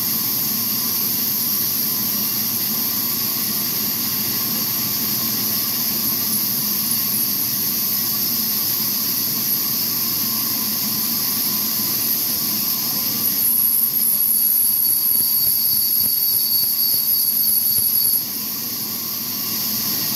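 Horizontal log band saw running steadily as its blade cuts lengthwise through a large log, a steady mechanical hum with a hiss. About two-thirds of the way in it gets louder with a high whine for about five seconds, then drops back to its steady running.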